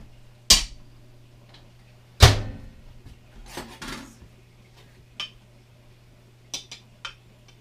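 A glass baking dish is set down on the counter, and the door of a built-in convection microwave oven is shut with a loud thud a little over two seconds in. A few light clinks of a utensil against the glass dish follow.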